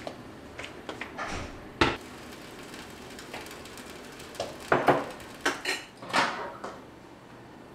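Kitchen handling noises of cookware and dishes being moved about: scattered light clicks, a sharp knock nearly two seconds in, then a run of louder clattering knocks with short ringing tails between about four and a half and six and a half seconds in.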